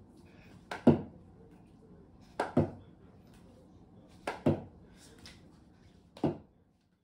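A series of sharp knocks, each a quick double thud, coming about every two seconds, four times in all.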